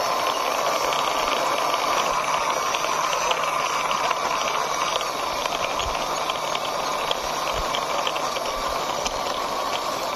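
Plastic toy car's wheels rolling along a rough concrete wall top as it is pushed by hand: a steady gritty rolling hiss with a fast, continuous rattle of small clicks.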